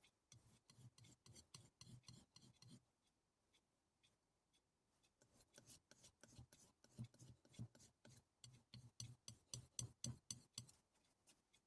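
A knife blade is stroked quickly back and forth on a strop, giving faint, rhythmic scraping strokes, about four or five a second. There are two runs, a short one at the start and a longer one from about five seconds in.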